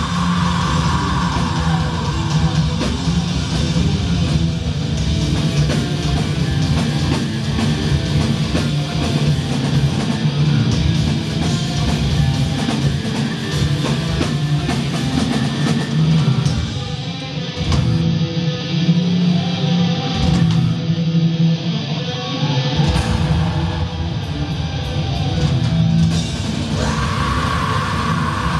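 Black metal band playing live, heard from the audience: distorted electric guitars, drum kit and vocals. The deep bass drops out for several seconds past the middle, then returns.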